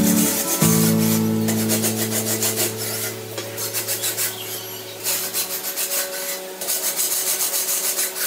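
Background instrumental music: held low guitar-like chords over a quick, even scraping rhythm.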